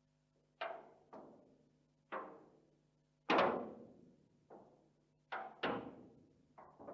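Corrugated iron sheet being flexed, giving a slow, irregular series of sharp metallic pops and bangs, each ringing out briefly. About eight in all, with the loudest bang about three seconds in.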